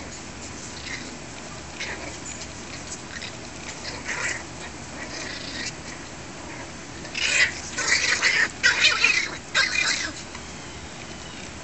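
Miniature Pinscher puppies yipping while they play-fight, short high calls scattered through, with a run of louder, closely packed yips from about seven to ten seconds in.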